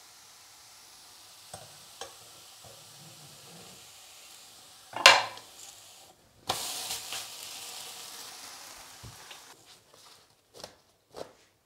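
A thin blin frying in a hot pan, sizzling faintly. About five seconds in there is a loud short burst of handling as the pancake is lifted out. The hot pan then gives a sudden louder sizzle that fades over about three seconds, and two light knocks follow near the end.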